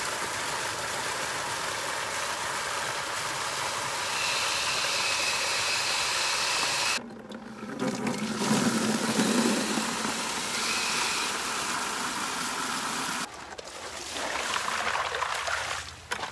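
Water from an irrigation zone valve pouring in a steady stream into a plastic bucket for a flow test. The rush turns deeper about halfway through and stops abruptly a few seconds before the end, followed by scattered handling noises.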